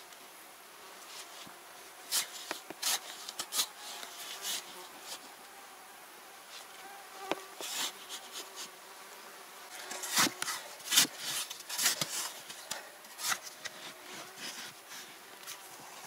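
Short-handled shovel jabbing and scraping into sandy soil while a narrow post hole is dug. The strokes come in irregular clusters, a few seconds in and again past the middle.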